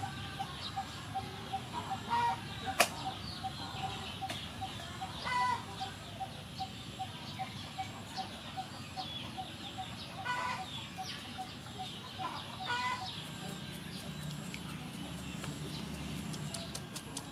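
Chickens clucking four times, over a steady ticking at about four a second that stops about three-quarters of the way through. Light taps from a knife point pricking the skin of boiled pork belly, with one sharp click about three seconds in.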